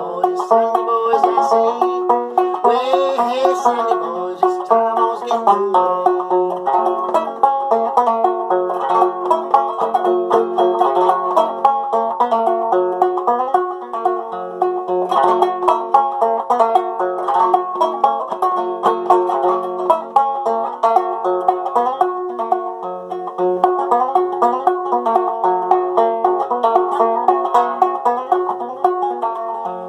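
Solo banjo played without singing: a steady stream of plucked notes, with one high note coming back again and again as a drone.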